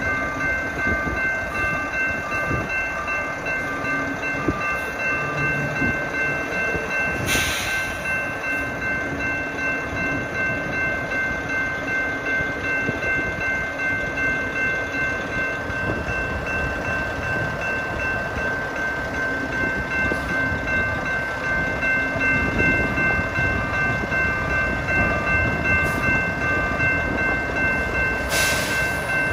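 Railroad crossing warning bell ringing steadily over the diesel engine of a hi-rail truck running on the tracks. Two short hisses come about seven seconds in and near the end.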